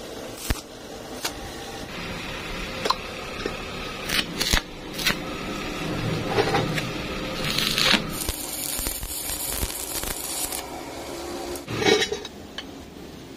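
Stick (arc) welding on steel: the electrode's arc crackling in spells, with sharp clicks and taps between welds and a louder knock near the end.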